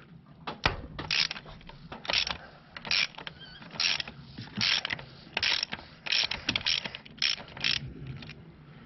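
Ratchet with a 24 mm socket clicking in around ten short bursts, roughly one a second, as it is swung back and forth to loosen the oil filter housing cap on the engine.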